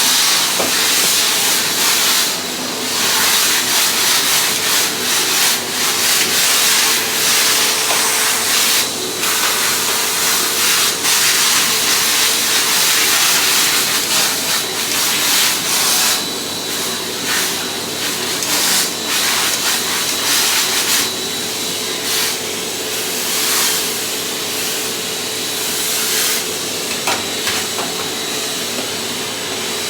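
Miele vacuum cleaner running: a steady rush of suction air with a constant motor hum, rising and dipping a little as it is pushed over the floor.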